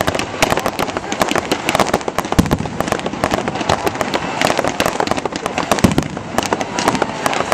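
Aerial fireworks bursting overhead: dense, continuous crackling and popping, with a couple of deeper bangs about two and a half and six seconds in.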